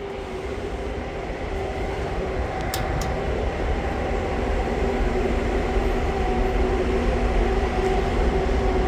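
A 26-inch Happy Home window box fan, switched on with its universal electric motor humming and the blades rushing air, gets gradually louder as it spins up towards full speed. There are two faint ticks about three seconds in.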